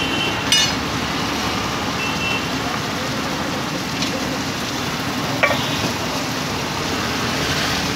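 Steady noise of a gas stove flame and food sizzling in a large steel pan, with a few sharp metal clinks of utensils.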